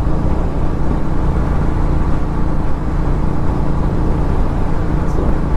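Royal Enfield Continental GT 650's 648 cc parallel-twin, fitted with an aftermarket Red Rooster exhaust, running steadily at cruising speed, with wind and road rush over it.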